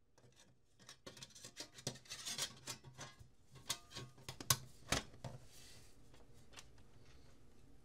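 Sheet-steel cover of an ATX computer power supply being handled and fitted back onto its case: scraping and rattling metal with sharp clicks, the two loudest about four and a half and five seconds in.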